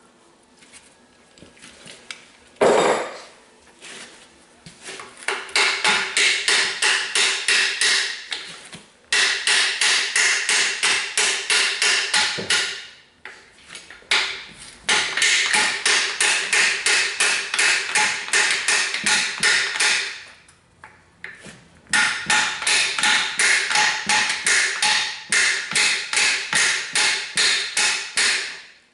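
Hammer blows on the steel over-the-tire track of a skid steer, about four a second, in four runs of several seconds with short pauses, each strike ringing. A single heavier knock comes about three seconds in.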